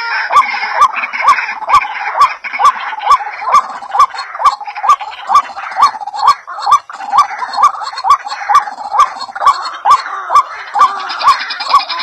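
Background music with a steady beat of about two beats a second, a short rising chirp sounding on each beat.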